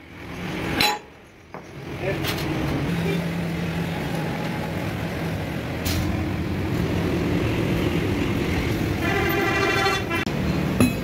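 Steady road traffic noise, with a vehicle horn sounding for about a second near the end, followed by a sharp knock.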